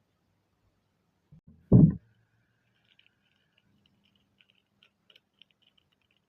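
Kinetic sand being handled: a dull, low thump about two seconds in, just after two softer ones, followed by faint light ticks and crackles.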